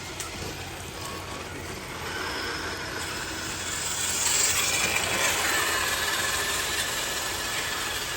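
RC crawler's electric motor and gearbox whining as it drives, the pitch shifting a little with throttle and growing louder about four seconds in, with a couple of clicks at the start.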